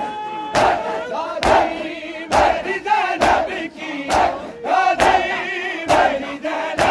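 Mourners beating their chests in unison (matam), a sharp slap a little faster than once a second, with a crowd of voices chanting between the strikes.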